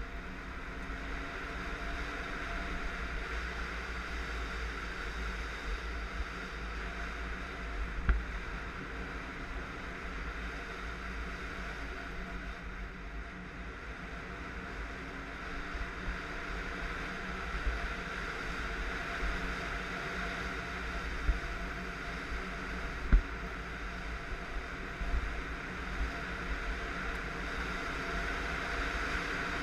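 Kawasaki KLR650 single-cylinder dual-sport motorcycle riding at a steady pace on a dirt road, heard from a camera on the bike as a steady engine drone mixed with wind rush. A few sharp knocks come through, the loudest about eight seconds in and twice in the last third.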